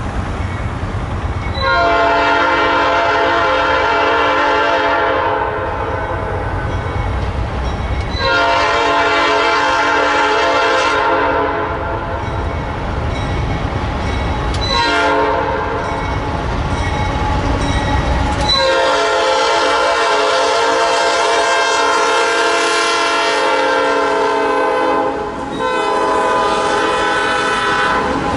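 Lead locomotive NS 4002's Nathan P5 five-chime air horn sounding the grade-crossing signal: two long blasts, a short one, then a long one held to the end. A low train rumble sits under the first three blasts.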